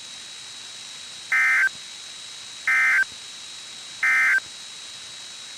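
Emergency Alert System end-of-message code: three short, identical bursts of SAME digital data tones about 1.3 seconds apart, over steady radio hiss, signalling the end of the alert.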